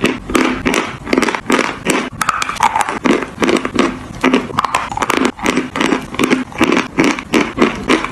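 A person chewing and crunching chalk close to the microphone: rapid, gritty crunches, about three or four a second.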